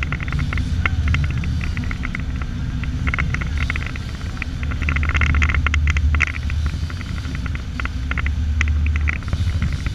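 Motorboat engine running with a steady low rumble, with clusters of quick, sharp ticks over it.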